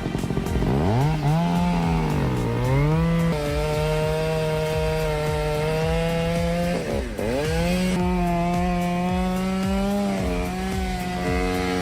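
Chainsaw engine running at high revs as it cuts into a tree. The pitch drops under load about a second in and again about seven seconds in, then climbs back each time.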